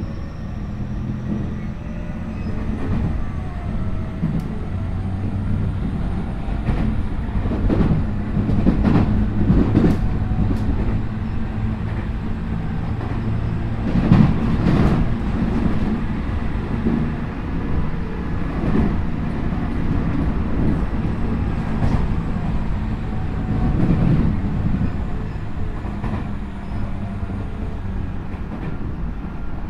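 Tokyu 5050 series electric train running at speed, heard inside the car at its end: a steady low rumble with wheels clacking over rail joints. A faint high whine from the Hitachi IGBT traction inverter rises in pitch near the start and falls near the end.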